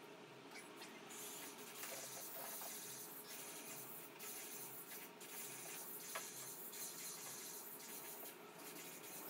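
A hand tool scratching along a straightedge on a canvas, in repeated strokes with short breaks, starting about a second in.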